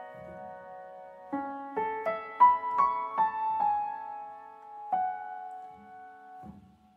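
Music: a slow, gentle melody of single struck notes on a piano-like keyboard instrument, each note ringing on. The last notes die away near the end.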